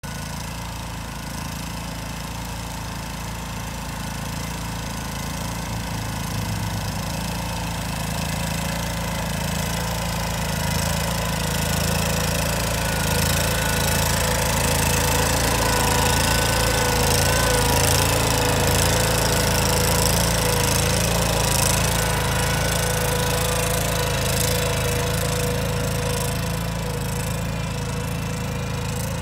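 Ventrac compact tractor with a front mower deck running, its engine and spinning blades cutting through tall dry grass. The sound grows louder toward the middle as the machine passes close, then eases off as it moves away.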